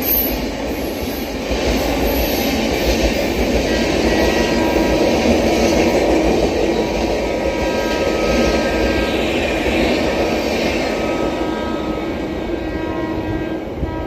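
Express train passing at speed without stopping, a loud steady rush of wheels on rails with a faint thin ringing over it, easing a little near the end.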